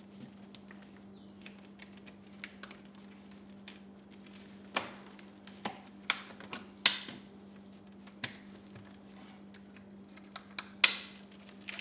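Hard plastic clicks and knocks, irregular and a second or so apart, as the air cleaner's end cap is pressed and twisted onto its housing and its clamps are worked into place; a steady low hum runs underneath.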